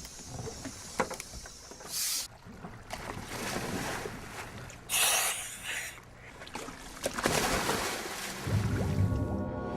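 Water and wind noise on a dive boat, with a few short rushes of noise and sharp knocks. Near the end, low sustained music tones come in.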